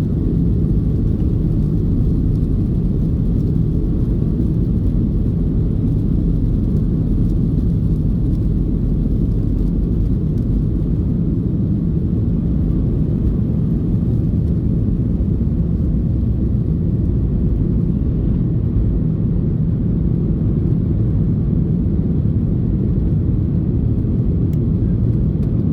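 Steady roar of a Boeing 737-800 in flight heard inside the cabin: the CFM56 jet engines and the rush of air over the fuselage make an even, deep rumble.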